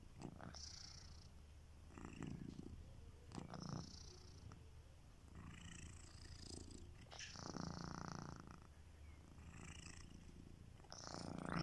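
A sleeping domestic cat snoring softly, a breathy, purr-like rasp with each breath, coming about every one to two seconds.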